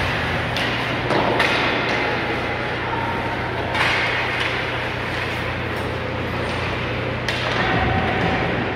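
Ice hockey game sounds in an arena: a steady hum and general rink noise, broken by several sharp knocks and thuds.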